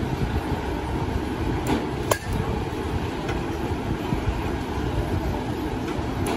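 A sharp metallic crack with a short ring about two seconds in, an aluminium bat hitting a pitched ball, with a fainter click just before it and another near the end, over a steady low rumble.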